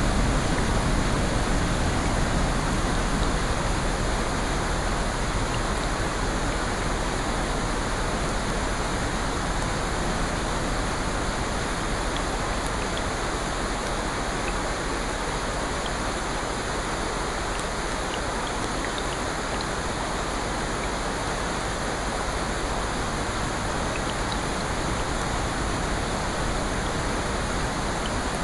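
Steady rain: a dense, even hiss with faint scattered drop ticks.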